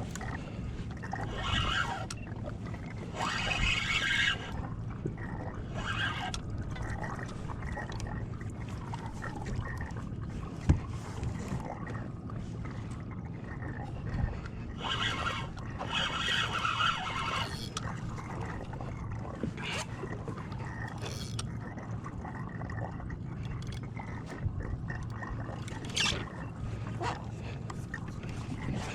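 Water sloshing and splashing against a kayak hull in intermittent swishes, over a steady low hum, with a single sharp knock about ten seconds in.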